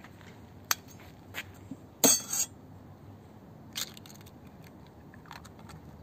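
Raw egg tapped with a knife blade and cracked open over a plastic bowl: a few sharp taps and clicks, with a louder crunch of the shell breaking about two seconds in and another click near four seconds.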